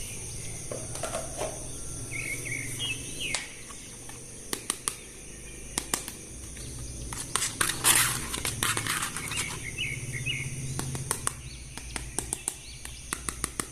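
Scattered sharp clicks and taps of plastic toys and packaging being handled, with a burst of rustling about eight seconds in and a quick run of clicks near the end. Faint bird chirps sound twice in the background.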